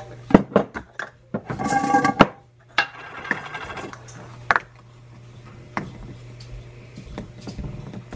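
Kitchen clatter of dishes and utensils being handled: a series of sharp clicks and knocks, with a short squeak about two seconds in, over a steady low hum.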